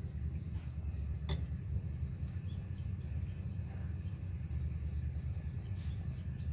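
Spicy fish stew simmering in a frying pan over a portable butane gas stove: a steady low rumble from the burner flame with faint bubbling, and a single sharp click about a second in.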